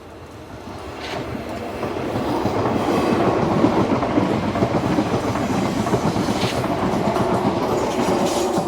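SNCF Z 24500 double-deck electric multiple unit approaching and passing close by, with wheels clattering over the rails. It grows louder for the first few seconds, stays loud for about five seconds, and starts to fade at the very end, with a few brief sharp wheel-on-rail sounds along the way.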